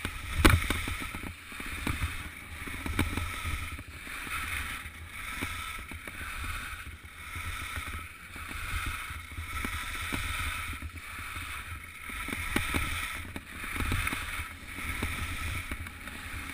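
Skis sliding on snow in a downhill run, a hiss that swells with each turn about once a second, over low wind rumble on the microphone. One sharp knock about half a second in.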